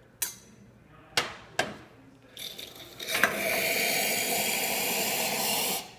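A few sharp metal clinks from a stainless steel pitcher being handled. Then, about three seconds in, hot water from the Pasquini Livia90 espresso machine's hot-water tap runs steadily into the pitcher and cuts off just before the end.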